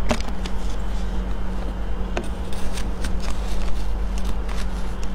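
Scattered clicks and crackles of a plastic tub of shaved ice being handled, then a metal spoon scraping into the shaved ice, over a steady low hum.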